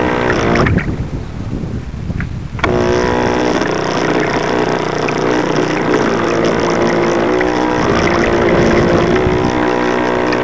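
Motor of a radio-controlled model boat, heard from a camera on board, whining steadily as the boat runs through the water. About a second in the motor falls away for roughly two seconds, then starts again abruptly.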